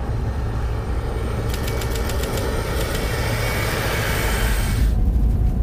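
Cabin noise of a Chevrolet pickup driving on a snowy runway: a steady engine and tyre rumble under a rushing hiss that cuts off sharply near the end, with a quick run of ticks about two seconds in.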